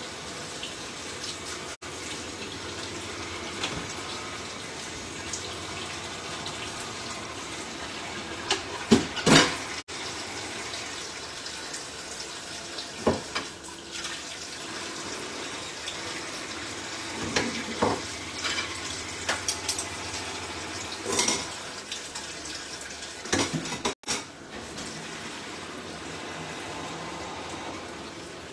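Kitchen tap running steadily into a steel sink, with scattered clatters and clinks, the loudest about a third of the way in, as mussels are handled in a metal bowl under the water.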